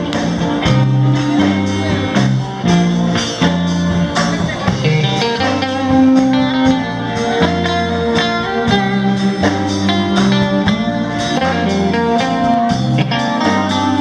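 Live rock band playing an instrumental passage: violin and electric guitar over bass guitar and drums keeping a steady beat.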